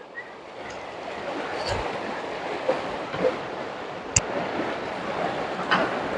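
Shallow jungle river rushing over stones, a steady noise of running water that grows louder over the first two seconds, with a few short sharp knocks or splashes.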